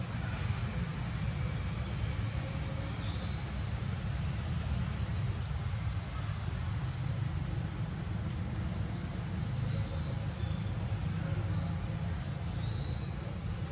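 Outdoor ambience: a steady low rumble with short, high chirps now and then.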